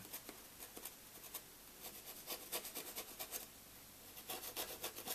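Faint rubbing and scratching of hands and a glue-tube nozzle against a foam model-plane tail fin as glue is applied along it: a scattered run of short scrapes and ticks.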